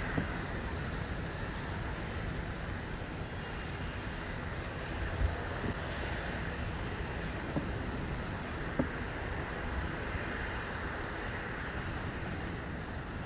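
Airbus A350's Rolls-Royce Trent XWB turbofans giving a steady jet roar as the airliner climbs away after takeoff. A few brief low thumps come near the middle.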